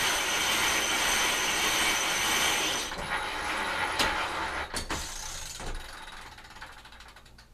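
Pontas high-speed grinder sailing winch cranked fast, its gears and pawls ratcheting steadily as it reels in line. About three seconds in the ratcheting drops off, and it fades out with a few separate clicks.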